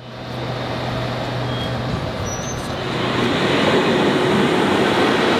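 Class 90 electric locomotive hauling a passenger train along the track, its rumble growing louder about three seconds in. A steady low hum fades out as the train noise swells.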